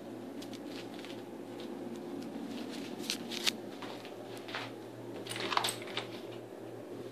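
Handling noise from a phone camera being carried: rustling and a few sharp clicks, the loudest about three and a half and five and a half seconds in, over a steady low hum.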